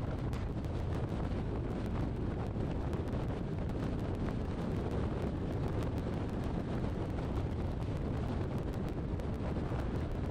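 Steady low rumble of wind on the microphone together with road noise from a moving car.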